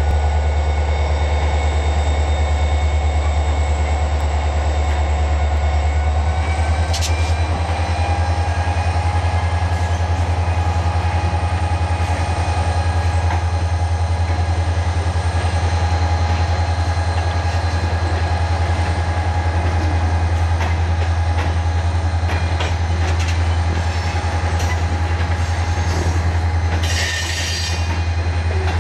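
Norfolk Southern freight train rolling past: a loud, steady low rumble of locomotive and hopper cars on the rails, with thin high wheel tones and a brief high squeal near the end.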